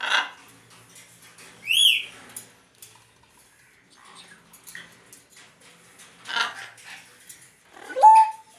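African grey parrot calling in its cage: a short squawk, a high whistle that rises and falls, a harsh squawk, and near the end a loud whistle that slides up and holds, which the owner likens to a doorbell ringing.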